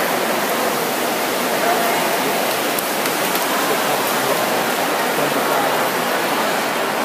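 Swimmers splashing and spectators shouting in an indoor pool hall, blurred together into a steady wash of noise with voices faintly in it.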